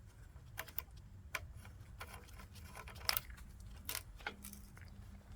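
Screw-in fuse being turned back into its holder by hand: a series of small clicks and light metallic rattles, the loudest about three seconds in. A low steady hum gets louder about four and a half seconds in.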